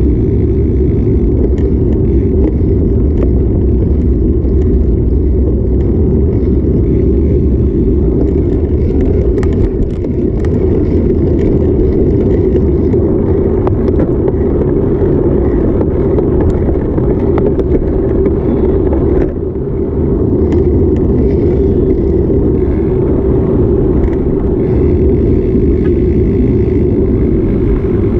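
Steady low rumble of wind buffeting the microphone of a camera on a moving bicycle, with city street traffic mixed in.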